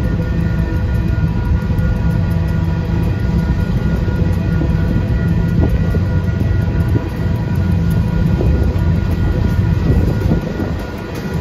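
Freight train of coal hopper cars rolling steadily past a grade crossing: a continuous low rumble of wheels on rail, with steady high-pitched tones above it.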